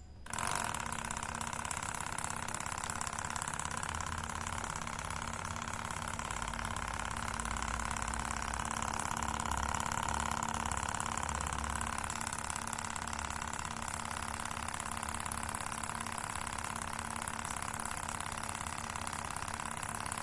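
Miniature single-cylinder model engine made of PVC pipe, driven by a small Tamiya DC motor, running steadily with an even mechanical hum.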